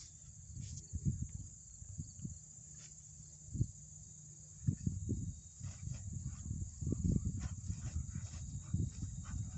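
Footsteps swishing and thudding through tall grass, irregular and low, sparse at first and coming thicker and steadier from about halfway in.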